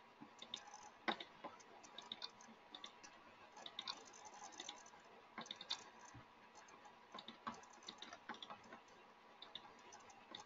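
Faint, irregular clicking of a computer mouse, single clicks spread unevenly with short gaps.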